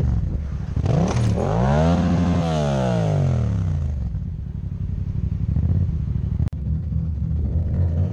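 Motorcycle engine idling, revved once: its pitch climbs smoothly from about a second in and falls back to idle by about four seconds in.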